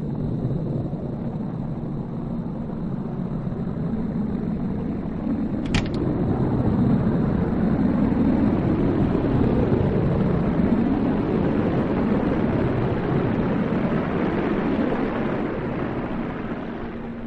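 Starship engine sound effect: a noisy rumble that builds to its loudest around the middle and fades out near the end, with a single short click about six seconds in.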